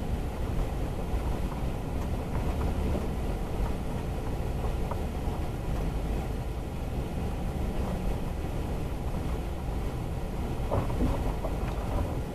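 A vehicle driving slowly over a rough dirt and gravel track, heard from a dash camera inside the cab: a steady low rumble of engine and tyres, with a few small clicks and rattles near the end.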